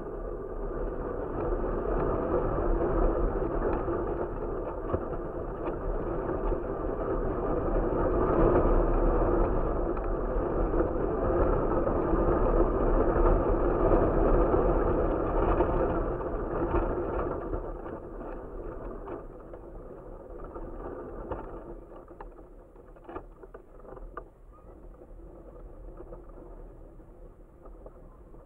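Wind rushing over the microphone of an action camera flying on a kite. It is loud and steady for the first half, then eases off, with a few light ticks near the end.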